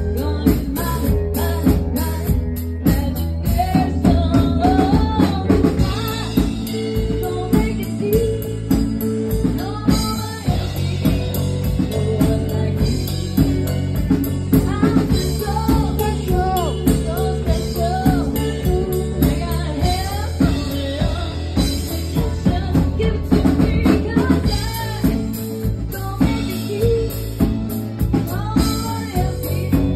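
Live band playing: a woman singing lead into a microphone over a drum kit and electric guitar, with a steady beat throughout.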